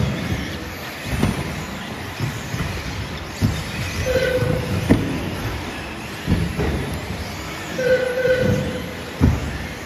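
Short electronic beeps every few seconds, typical of an RC race lap-counting system logging cars crossing the timing line, over irregular knocks and clatter from the RC cars on the carpet track.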